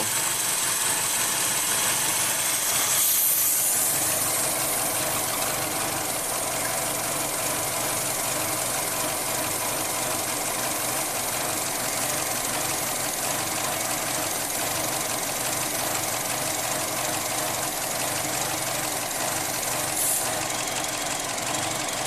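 A 2012 Chevy Cruze's 1.4-litre turbocharged four-cylinder idling steadily with a hiss over it. The hiss briefly rises about three seconds in and again near the end. The engine has an intake vacuum leak and excessive crankcase vacuum, which the mechanic puts down to a bad intake manifold.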